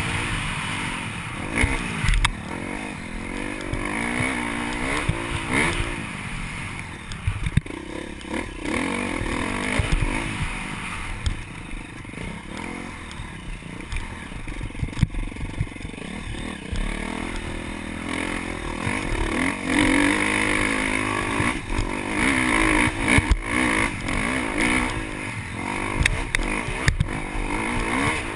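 KTM dirt bike engine revving up and down as it is ridden over rough off-road ground, with scattered knocks and clatter from the bike.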